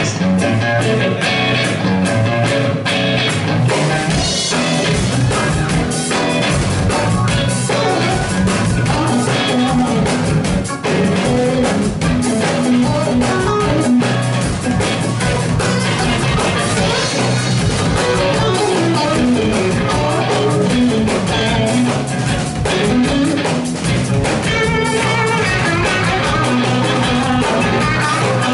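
Live blues band playing a Texas blues number at a very fast tempo: electric guitars, drum kit, bass guitar and a Nord Stage keyboard.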